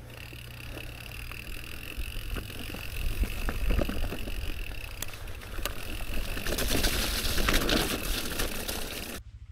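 Footsteps and a pushed fat bike going through wet, boggy grass: rustling, crunching and clicking, loudest about six to eight seconds in, over a steady low rumble. It cuts off sharply just before the end.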